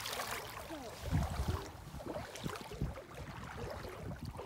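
Legs wading through floodwater: water sloshing and splashing around the boots with each step. A brief low rumble on the phone's microphone about a second in.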